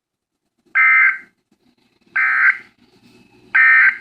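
Emergency Alert System end-of-message (EOM) data signal: three short, loud bursts of buzzing digital data tones, evenly spaced about a second and a half apart, marking the end of the alert.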